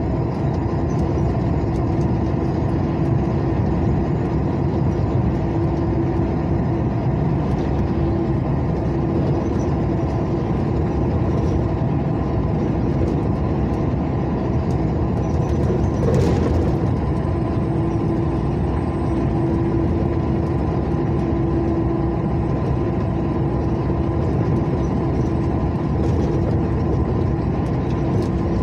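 A vehicle driving at speed: steady engine and tyre rumble with a constant hum, and a single short click about sixteen seconds in.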